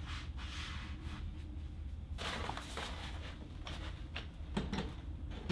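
A rolled paper backdrop being handled and fitted onto a ceiling-mounted metal backdrop bracket: several short spells of rustling and light scraping, over a low steady room hum.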